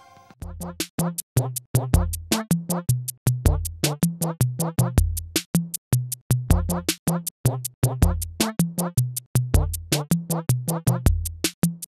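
Electronic music with a fast, steady drum-machine beat and a bass line, starting about half a second in.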